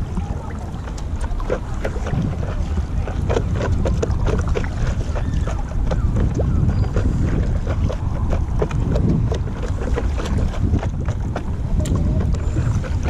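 Water splashing and lapping around a stand-up paddle as it is dipped and pulled through the water, in many small irregular splashes. A steady low rumble of wind buffets the microphone underneath.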